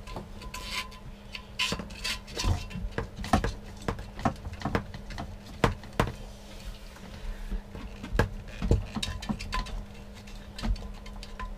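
Hands fitting a plastic vacuum breaker and hoses at the back of an RV toilet: irregular clicks, taps and knocks of plastic parts being handled and pushed into place, over a steady low hum.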